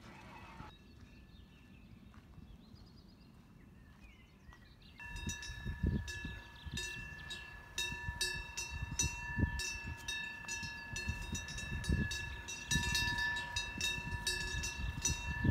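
Bells on a grazing cow herd ringing and clanking, several bells sounding at once with irregular clanks, starting about five seconds in after a quiet stretch with faint chirping.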